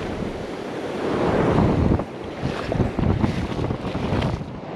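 Wind gusting across the microphone with the steady wash of surf beneath it, the rumble swelling and easing by turns.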